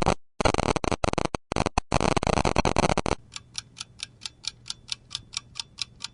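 A loud, dense noise broken by several short gaps for about three seconds. It then gives way to a clock ticking evenly, about five ticks a second.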